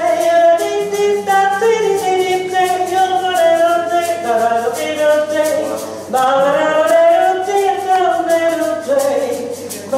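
A woman's voice singing without words in long held notes, with a slow rise and fall in pitch about six to eight seconds in.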